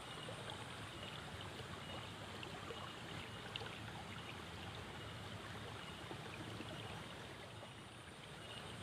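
Steady flow of water in a small ditch, an even trickling wash.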